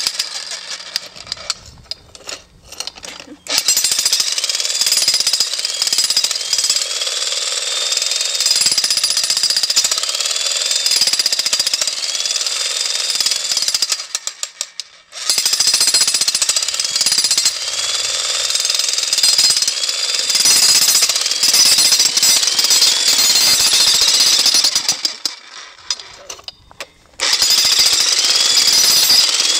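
Jackhammer running in three long stretches of rapid hammering, with short pauses between: it starts a few seconds in and stops briefly twice.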